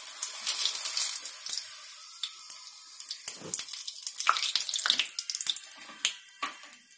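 Hot oil sizzling and crackling around a wheat samosa deep-frying in a kadai. The crackle is thick at first, then thins to scattered sharp pops and clicks as the samosa is lifted out on a perforated skimmer, and fades toward the end.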